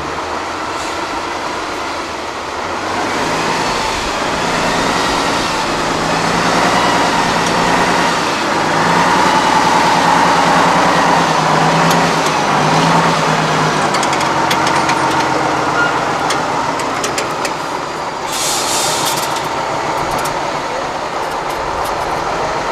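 Diesel engine of an 8x8 trial truck working hard under load, its revs rising and falling as it crawls up a steep dirt bank. A short hiss comes about three-quarters of the way through.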